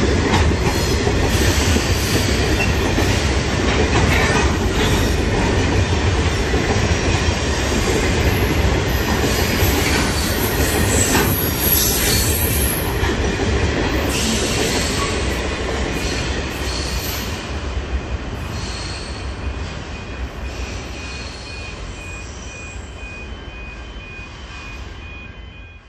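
Grain train's hopper wagons rolling past on steel wheels, a steady rumble and clatter that fades away after about halfway as the end of the train moves off down the line.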